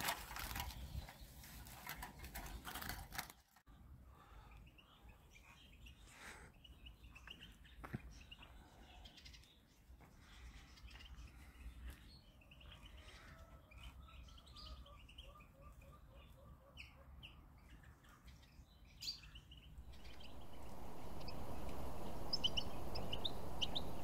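Clatter of a wooden wire-mesh bird trap being handled for the first few seconds, then faint scattered chirps and short trills of small songbirds. Near the end a steady hiss comes in, with a few high chirps over it.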